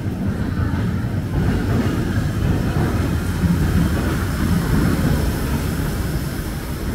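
DisneySea Electric Railway train running along the elevated steel track overhead: a low rumble that swells toward the middle and then eases off.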